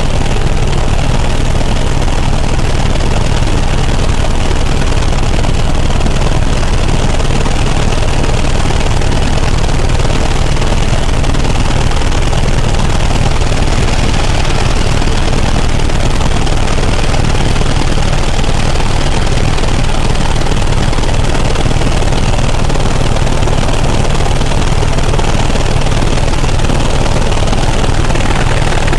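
Helicopter in flight: loud, steady rotor and engine noise with a deep low rumble, unchanging throughout.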